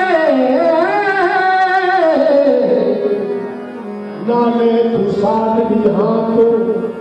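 Qawwali: a singer draws out a long, ornamented line that slides down in pitch, backed by steady harmonium tones. The line dies away about three seconds in, and voice and harmonium come back in with a new phrase a little after four seconds.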